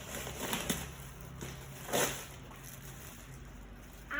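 Gift packaging rustling as it is handled, with a few brief rustles and a sharper crinkle about two seconds in.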